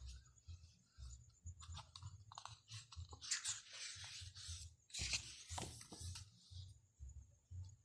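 Packaging being handled: scattered clicks, then two longer bouts of crinkling, about three and five seconds in, over soft handling bumps.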